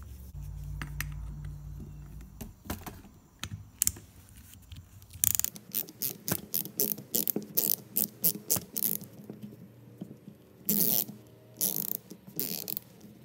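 Socket ratchet wrench clicking as a nut is tightened down on a bolt, in runs of sharp clicks at several a second from about five seconds in. The nut is being brought just snug so the joint can still pivot.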